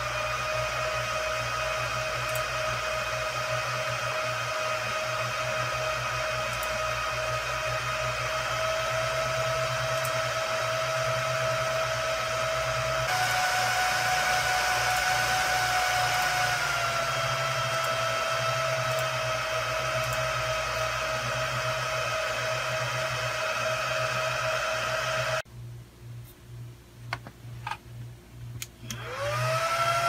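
Cooling fans of a small Supermicro server running at high speed under full CPU load: a steady whine over a hiss. About halfway through, the pitch drops a little. Near the end the sound drops to quiet with a few clicks, then a server's fans spin up with a rising whine at power-on.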